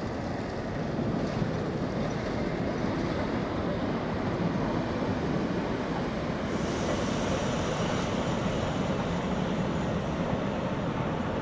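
A CP Class 3400 electric multiple unit running on the track, a steady rumble of wheels and traction equipment. A little over halfway through, the sound changes suddenly to a brighter, hissier rush as a train is heard on another stretch of line.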